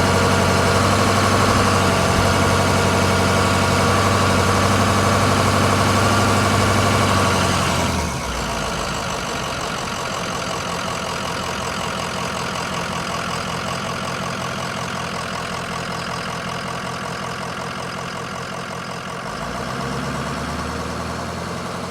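Engine running steadily. About eight seconds in it cuts to a different, quieter engine sound with a fast, even pulse, which shifts again near the end.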